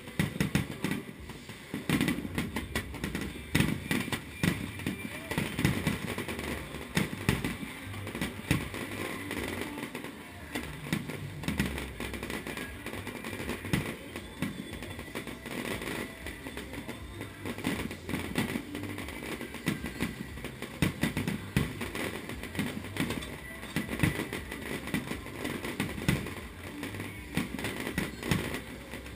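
Fireworks display: aerial shells bursting in quick succession, a dense run of sharp bangs and crackles throughout.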